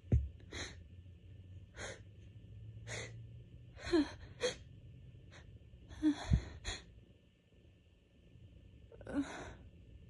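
A woman's sharp, hitching in-breaths, about nine short gasps in a row, some with a slight vocal catch: the build-up to an allergy sneeze. Two low thuds, one at the start and one about six seconds in.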